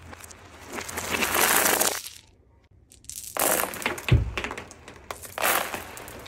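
Small plastic beads clattering and rattling over a hard laminate floor, played in reverse, in three bursts. The first swells and then cuts off abruptly, and a low thump comes about four seconds in.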